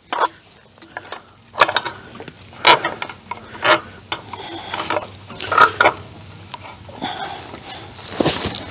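Woven wire fencing being pressed down and fitted over a wooden 2x6 board on dry leaves and pine needles: rustling with irregular light clinks and taps, a few of them sharper, about once a second.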